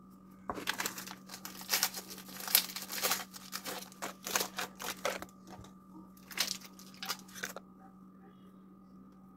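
Crinkling and crackling of Reese's peanut butter cup packaging being handled as the cups are unwrapped for the cake top. It runs for about four and a half seconds, pauses, then comes again briefly. A steady low hum sits underneath.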